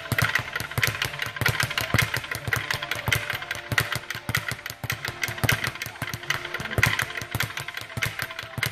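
Speed bag being punched and rattling against its rebound platform: a fast, uneven run of knocks, several a second.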